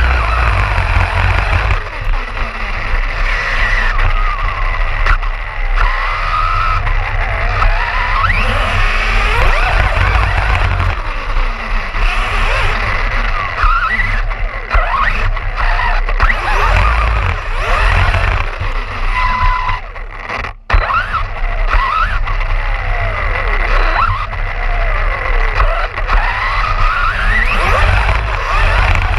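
Arrma Fazon BLX 6S RC car driven hard, its brushless motor whining up and down in pitch again and again as it accelerates and slows, over a constant rumble of tyres and wind on a GoPro mounted on the car's body.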